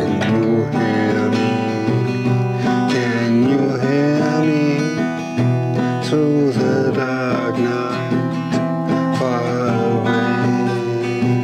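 Acoustic guitar strummed steadily as song accompaniment, with a gliding, wavering melody line over the chords.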